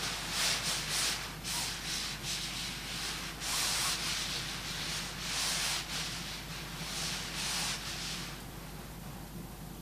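Fire burning nylon fabric in a stove, hissing in irregular surges of about half a second each, which die down to a faint steady hiss about eight seconds in.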